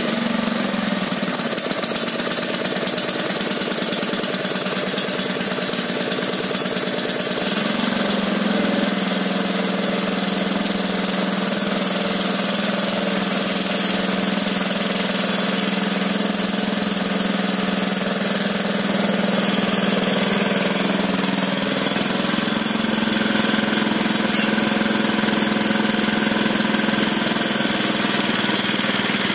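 Honda GX160 single-cylinder engine, freshly rebuilt, running steadily just after a pull start. Its pitch drops a little about seven seconds in and rises slightly again around twenty-two seconds.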